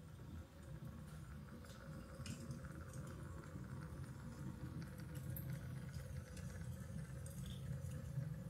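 Quiet room tone: a steady low rumble with a faint steady hum and scattered faint clicks.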